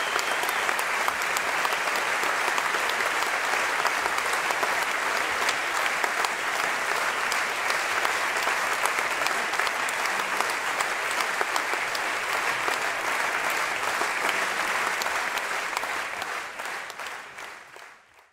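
A crowd applauding, a steady dense clapping that fades out near the end.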